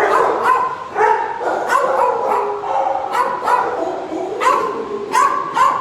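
Several shelter dogs barking and yipping over one another, a rapid run of sharp barks a few each second.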